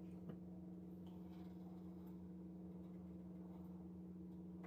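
Faint steady low hum, with a couple of faint clicks of a metal spoon as green salsa is spooned onto quesadillas.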